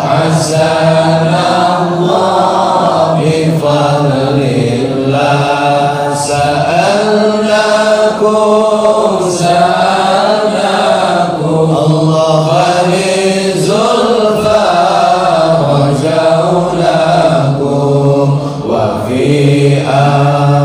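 Male congregation chanting Arabic dhikr in unison: a slow, melodic chant of long held notes, with short breaks between phrases.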